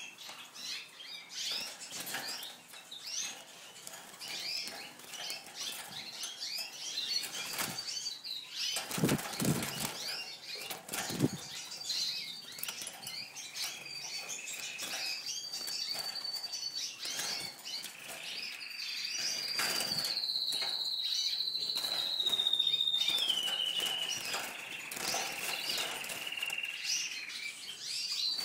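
Small cage birds fluttering and flapping their wings in a wire cage, with many short high chirps and a few louder thumps about a third of the way in. In the second half a long high whistled note slides down in steps.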